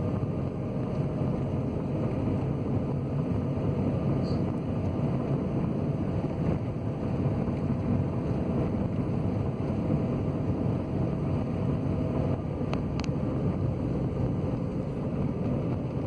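Car driving along a paved road, heard from inside the cabin: steady engine and tyre noise, with a faint steady whine that drops away about twelve seconds in and a couple of light clicks just after.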